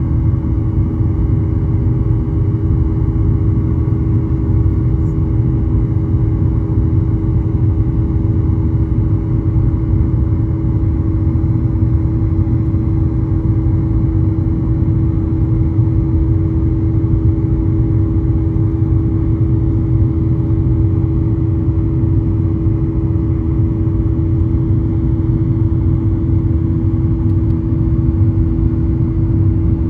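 Steady cabin noise of a Boeing 737 with its jet engines running: an even low rumble with a steady hum over it.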